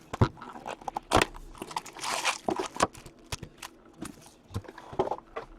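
A sealed box of hockey cards being opened and handled: plastic wrapping crinkling and tearing, with several sharp knocks and taps of the cardboard box.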